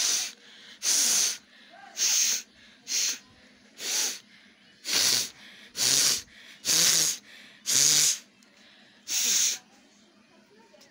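A person with a head cold blowing her nose hard, forcing air out through the nostrils in ten short, loud, hissy blasts about a second apart.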